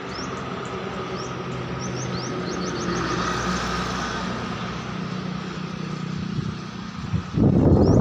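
A motor engine hums steadily, swelling to its loudest about three seconds in and then easing off, while small birds chirp in short rising notes. Near the end a sudden loud rumbling buffet sets in and becomes the loudest sound.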